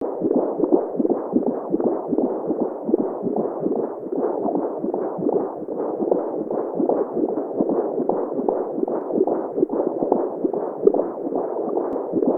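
Simulated womb sound: a muffled, whooshing noise with an uneven pulsing texture, meant to mimic a mother's heartbeat and blood flow as heard in the womb.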